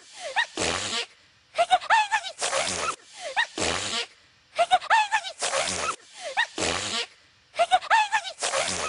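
A cartoon pony character's acted sneezing, looped. Each round has a few rising, high-pitched "ah" intakes, then a breathy sneeze, then a short second sneeze, and the round repeats about every three seconds, close to three times here.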